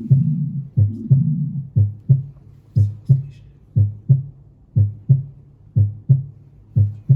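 Recorded heart sounds from auscultation played back, a steady lub-dub about once a second. For about the first second and a half a low murmur fills the gaps between beats; after that the beats come clean, sounding like a normal heart.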